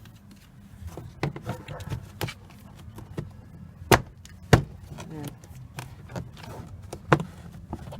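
Scattered clicks and light knocks of plastic car-door trim parts being handled and fitted, with two sharp knocks about halfway through.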